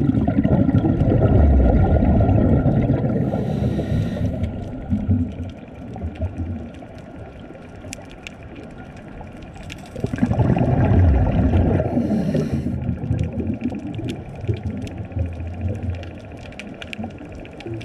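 Scuba diver's regulator breathing underwater: exhaled bubbles rumble and gurgle for several seconds, twice, once at the start and again about ten seconds in, each with a short high hiss. Fine crackling clicks run underneath.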